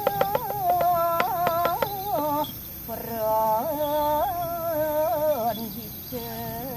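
A high voice chanting a slow devotional melody in long wavering phrases, with short pauses about two and a half and five and a half seconds in. A rapid run of sharp ringing strikes goes along with it for the first two seconds.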